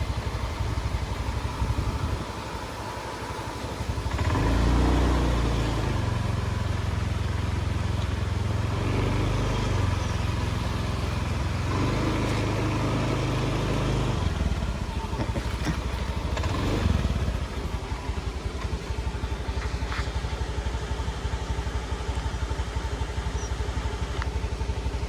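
Motorcycle engine idling steadily, swelling louder for a couple of seconds about four seconds in.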